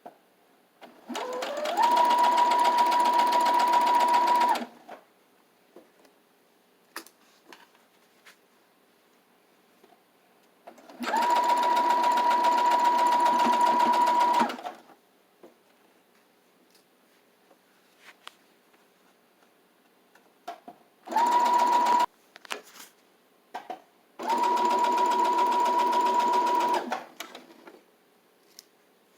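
Electric sewing machine stitching in four runs of a few seconds each, one of them short, each with a steady hum that rises to speed at the start and stops abruptly. Soft clicks and handling sounds fill the pauses between runs.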